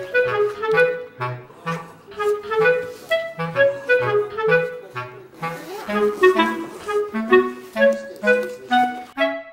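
Background music: a melody of short notes over a bass line with a note about every half second.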